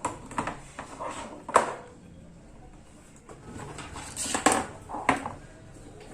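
Irregular clinks and knocks of small metal objects being handled and set down, the sharpest about a second and a half in and a cluster of them near the end.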